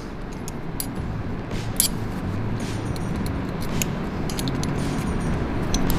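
Scattered light metallic clicks and clinks as the circle-cutting guide on an oxy-acetylene cutting torch is handled and adjusted, over a steady background noise with a low hum.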